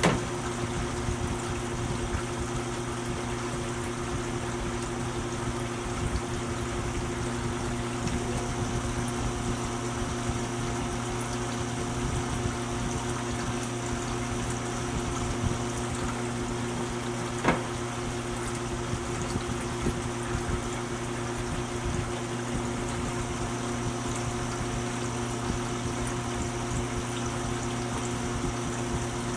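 Stock K40 laser exhaust fan running steadily, a hum with a rush of air blowing through a duct into a vane anemometer. A sharp click about halfway through.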